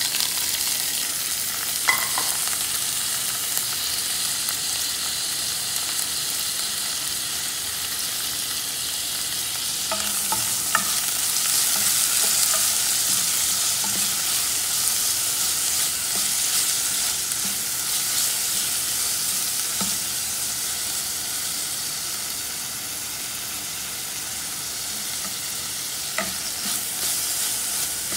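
Sliced onion, tomato and chillies sizzling in hot oil in a nonstick saucepan, the hiss jumping up at the start as they go into the pan, while a spoon stirs them with a few light knocks against the pan.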